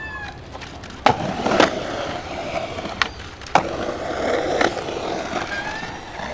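Skateboard on concrete: the wheels' rough rolling noise, broken by about five sharp clacks of the board hitting the concrete, the loudest about a second in and about three and a half seconds in.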